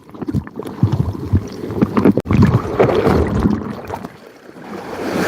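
Sea surf washing and splashing in the rocky shallows. It swells loudest about two and a half seconds in, dies away, and a new wave builds near the end.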